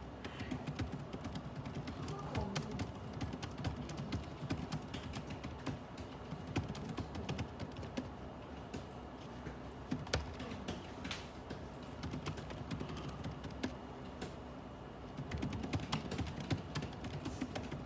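Typing on a computer keyboard in irregular bursts of key clicks, with a few sharper single clacks, over a low steady background rumble.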